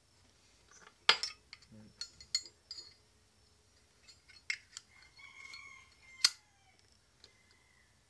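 Metal clicks and clinks from a Zippo lighter being handled, the sharpest about a second in and about six seconds in, with a faint drawn-out tone in between.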